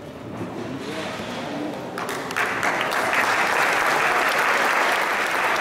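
Audience applauding. The clapping breaks out about two seconds in and then keeps up steadily.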